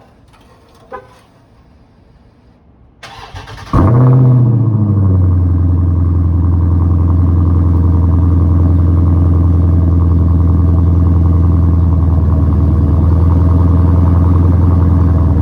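2021 Dodge Challenger Scat Pack's 6.4-litre 392 Hemi V8 cold-started through an MBRP 3-inch cat-back exhaust with quad tips. After two faint clicks, the starter cranks briefly about three seconds in, the engine catches with a quick rev flare, then settles into a loud, steady cold idle.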